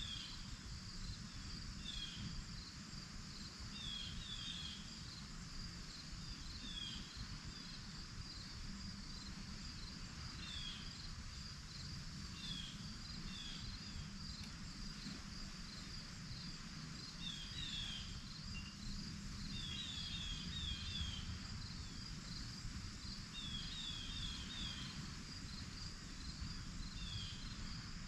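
Dusk insect chorus, crickets trilling steadily at a high pitch, with short falling chirps repeated in clusters of two to four every second or two, over a low rumble.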